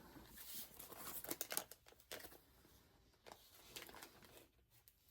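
Faint crinkling of a plastic comic book bag being handled, a run of small crackles over the first two seconds, then only a few scattered ones.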